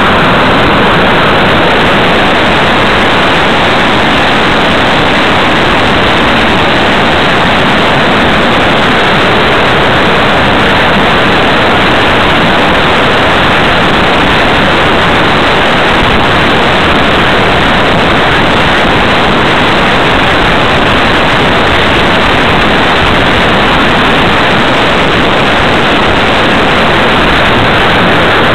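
Loud, steady rushing noise of airflow over the onboard camera microphone of a small RC plane in flight, with no clear motor whine.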